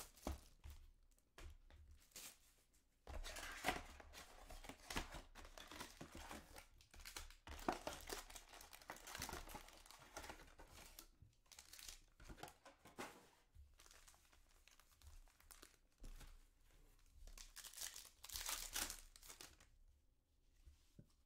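Plastic wrap and foil trading-card packs crinkling and tearing as a hobby box of Panini Select soccer cards is unwrapped and its packs handled and opened, in irregular rustling bursts: the strongest about 3 s in, around 8 to 10 s, and near the end.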